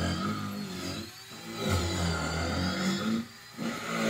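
An engine running and revving up and down, easing off briefly about a second in and again near the end.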